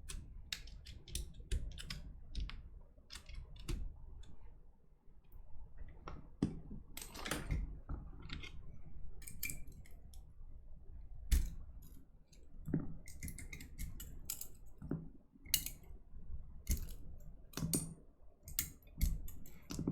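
Irregular sharp clicks and taps of small hard parts being handled while working on a mechanical keyboard, coming singly or in short clusters with quiet gaps between.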